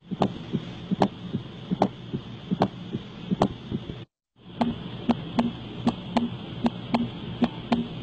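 Recorded heart sounds: a regular beat about every 0.8 seconds. After a short break about four seconds in, a faster beat follows at about two or three sounds a second.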